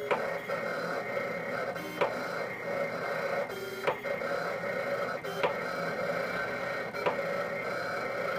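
USCutter SC 34-inch vinyl cutter cutting vinyl at a reduced speed of 400 mm/s. Its motors whine steadily as the carriage and rollers move, broken by five sharp clicks about every one and a half to two seconds.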